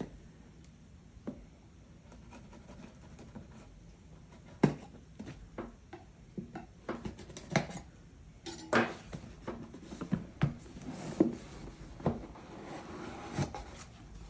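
Hands handling a laptop's cardboard box and packing pieces: scattered light knocks and taps, with rustling from about two-thirds of the way through.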